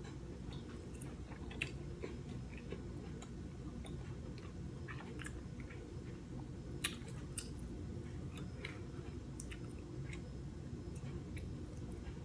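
Close-miked chewing of king crab meat, with scattered small clicks and crackles from the shell and two sharper clicks, one near two seconds in and one about seven seconds in, over a steady low hum.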